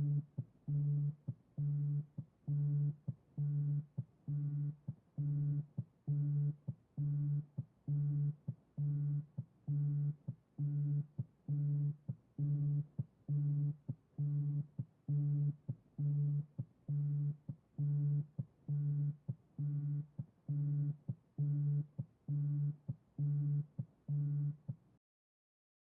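iPhone vibrating for an incoming call in vibrate ring mode: its vibration motor buzzes in repeated pulses of about half a second, a bit under one a second, and stops abruptly near the end.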